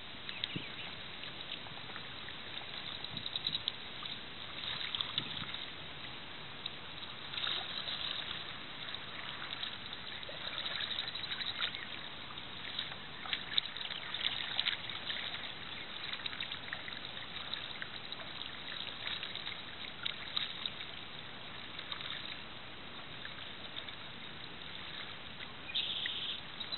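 Water splashing and dripping in irregular bursts every couple of seconds over a steady hiss of moving water, as a paddle works a small plastic boat through shallow water.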